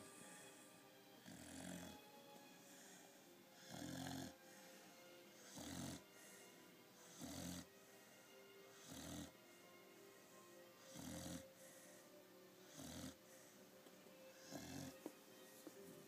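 A pit bull puppy snoring quietly and evenly, about one snore every two seconds.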